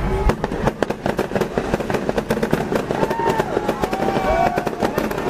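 Fireworks going off, many sharp bangs and crackles in quick succession.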